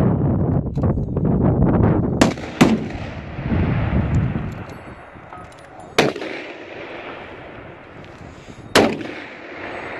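Four shots from long-range precision rifles fired prone: two close together about two seconds in, then single shots about six and nine seconds in, each with a short trailing echo. Heavy wind buffets the microphone through the first four seconds.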